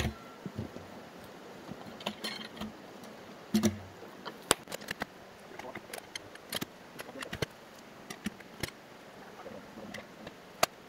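Irregular wooden knocks, scrapes and metallic clinks as a log is levered and rolled up timber ramps with long-handled log tools, with a heavier thud about three and a half seconds in and sharp clacks scattered after it.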